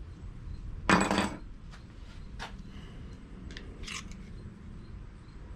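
Small metal engine parts being handled and set down: one loud clinking clatter with a brief ring about a second in, then a few lighter clicks.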